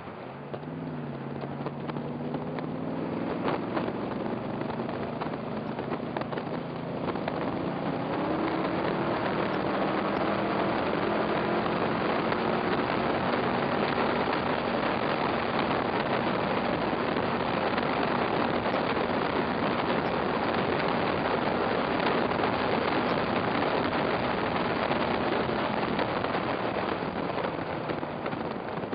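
Onboard sound of a Cobra roadster at racing speed. The engine accelerates, its note climbing steadily for several seconds, then wind rush over the open cockpit builds and mostly covers the engine.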